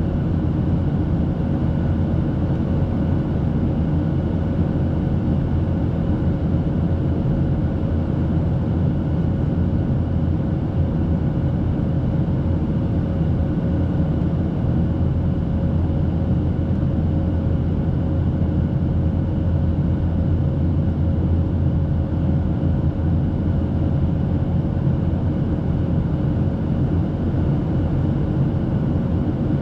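Steady cabin drone of a Boeing 737-800 in flight: its CFM56-7B turbofans and the airflow over the fuselage make an even, heavy low rumble, with a faint constant hum above it.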